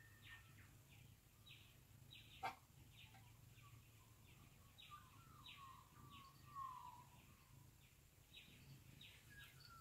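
Faint dawn chorus of birds: many short chirps and, about five to seven seconds in, a falling warbled song phrase, over a low steady hum. A single sharp click about two and a half seconds in is the loudest sound.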